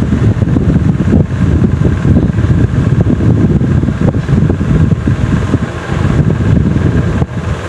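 Loud, uneven low rumble of air buffeting the microphone.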